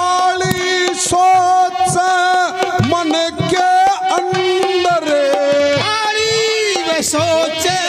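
Male folk singer singing in long held notes through a microphone and PA, with harmonium and hand-drum accompaniment, in the style of a Haryanvi ragni.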